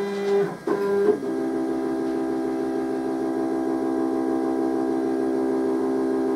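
Stepper motors of a homebuilt CNC router driving the gantry along the Y axis during a touch-off routine, giving a steady whine of several pitches. Near the start the whine breaks off and comes back at a different pitch as the move changes.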